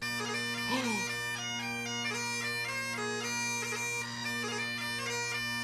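Bagpipes playing a lively jig as a doorbell chime, starting abruptly. A steady drone sounds under a quick, skipping chanter melody.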